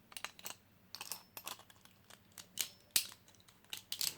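Hard plastic Beyblade parts clicking and tapping as they are handled: a dozen or so irregular sharp clicks, the loudest about two and a half, three and four seconds in.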